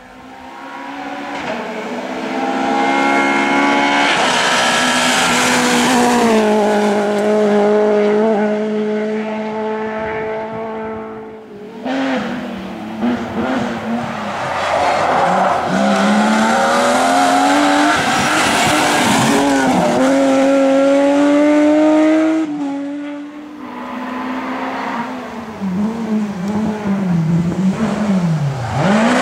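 Rally cars at full throttle on a stage, their engines revving up and falling back through gear changes. The engine note breaks off and restarts abruptly about 12 and 23 seconds in, as one pass gives way to the next. In the last stretch the revs swing quickly up and down.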